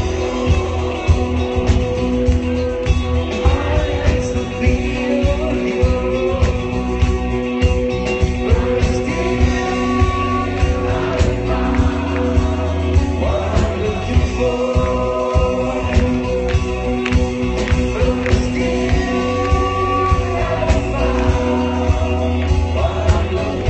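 Live rock band playing a song: a male lead singer sings over electric guitar and drums with a steady beat.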